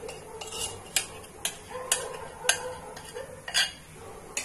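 Metal spoon scraping and knocking against a bowl and the rim of an aluminium kadhai as a wet herbal paste is scraped out into the water. It makes irregular clinks and scrapes, about five of them, one every half second to a second.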